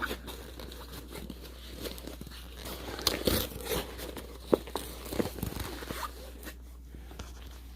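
A cardboard shipping package being handled and torn open: crinkling, tearing and scattered crunching clicks, busiest from about three to five and a half seconds in, over a low steady hum.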